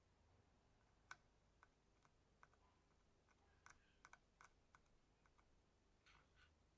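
Faint, irregular small clicks of metal tweezers handling a tiny surface-mount LED against the circuit board, the sharpest about a second in.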